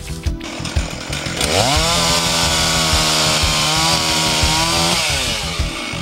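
Two-stroke chainsaw idling, then revved up about a second and a half in and cutting steadily into the last hinge wood at the base of a tree lead for about three seconds, before dropping back to idle near the end.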